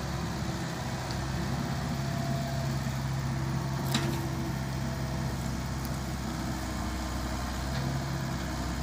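Small Volvo excavator's diesel engine running steadily as the machine swings and digs, with a single sharp knock about four seconds in as the bucket comes down on the garbage pile.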